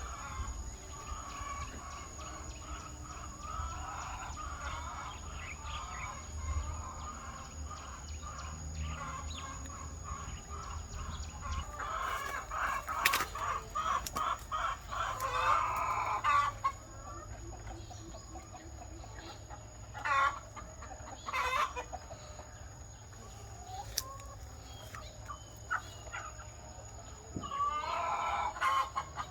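Chickens clucking and calling, with louder stretches about midway and again near the end that fit roosters crowing.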